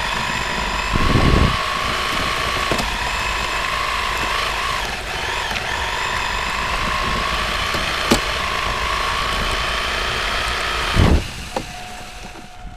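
Radio-controlled car's motor running at a steady, high-pitched whine, dipping briefly in pitch around the middle and stopping near the end. A low thump sounds about a second in and again just as the motor stops, with a single sharp click in between.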